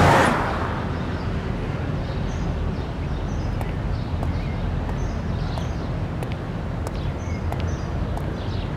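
Outdoor street ambience: a steady low rumble with faint, scattered bird chirps and a few small clicks, after the last of a musical swell dies away in the first half second.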